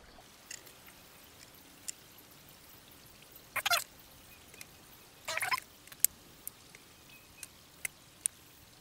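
Thin laser-cut MDF puzzle pieces clicking and scraping as they are pressed and slid into the slots of a miniature kitchen model: scattered light clicks, with two short scraping rubs about three and a half and five and a half seconds in.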